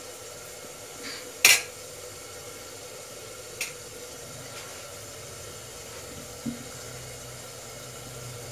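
A steel spoon clinking against a steel plate a few times, loudest about one and a half seconds in, over a steady hiss of chutney frying on the gas stove.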